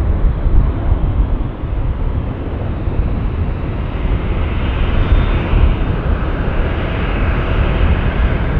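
Twin-engine jet airliner climbing out after takeoff: steady jet engine noise with a deep rumble, wavering slightly in loudness.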